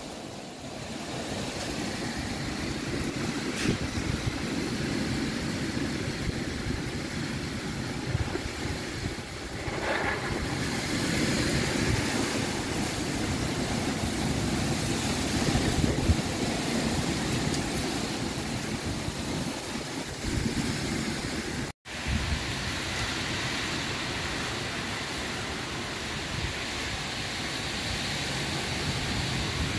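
Strong storm wind rushing through trees and buffeting the microphone, the gust-front winds of a severe bow-echo thunderstorm. It drops out for an instant about two-thirds of the way through.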